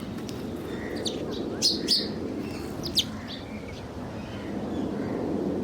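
Small bird chirping: a few short, sharp, high chirps in quick succession in the middle, over a steady low background hum of outdoor noise.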